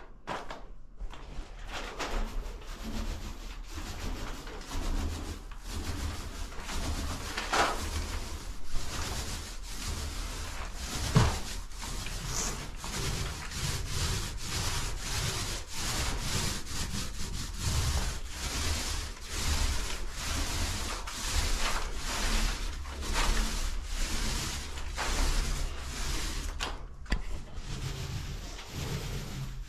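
Paint roller on an extension pole rolling PVA primer onto textured drywall walls: a steady rubbing swish that swells and fades with each up-and-down stroke.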